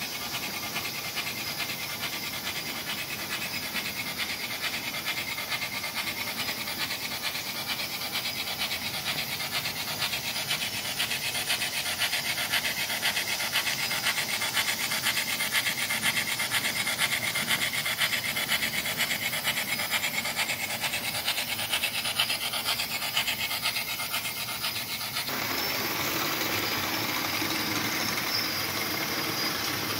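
MTH O-gauge Shay geared steam locomotive model's sound system giving fast, even chuffing, with the metal wheels of the locomotive and loaded log cars rolling on the track. The sound changes, growing fuller and steadier, about 25 seconds in.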